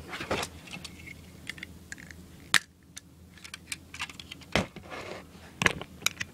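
Irregular clicks and knocks of hard plastic being handled and set down: B-daman toy figures and a gray plastic magazine moved about on a plastic tub lid, with sharper knocks about two and a half, four and a half and five and a half seconds in.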